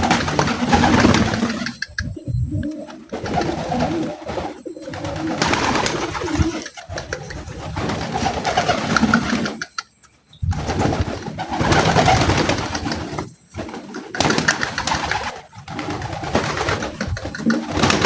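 Domestic pigeons cooing, a dense, continuing run of low coos broken by a few short gaps.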